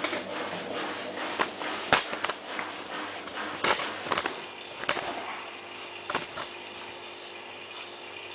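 Miele PW6055 Plus washing machine starting a cycle and filling with water, a steady hiss of water running in broken by several sharp clicks. It fills slowly because of low water pressure in the building.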